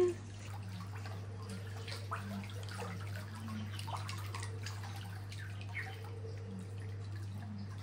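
Gentle lapping and dripping of pool water around a person floating on their back, with faint scattered small splashes over a steady low hum.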